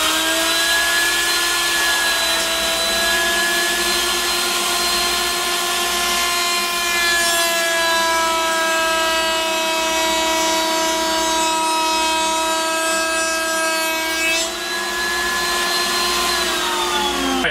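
Table-mounted router running at full speed with a steady high whine, reaching speed at the start and winding down near the end. Over the middle several seconds a coarser hissing joins it as the bit cuts a decorative edge profile along the face of a board.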